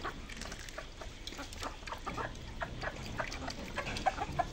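Chickens pecking grain off concrete in quick, irregular taps, with a few short clucks near the end.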